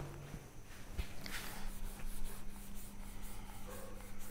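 Faint handling sounds and a soft knock, then a whiteboard marker squeaking faintly on the board near the end; the marker is one that has dried out. A low steady hum runs underneath.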